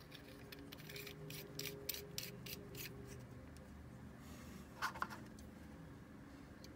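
Faint clicking and light scraping of small metal parts being handled: the knurled cap of a steel Hagen's pen gun being worked and its brass pencil insert drawn out of the barrel. A quick run of clicks over the first three seconds, then two short sounds about five seconds in.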